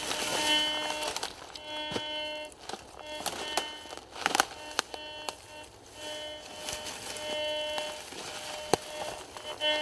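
Garrett GTI 2500 metal detector sounding short buzzy tones of steady pitch, about half a second each, several times as its double-D search coil sweeps over buried metal targets. Crunching and crackling from steps and the coil in dry leaf litter.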